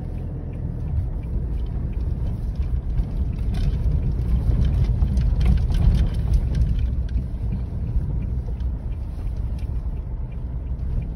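Inside a vehicle's cabin driving over a rough dirt track: a steady low rumble with many scattered knocks and rattles from the bumpy surface.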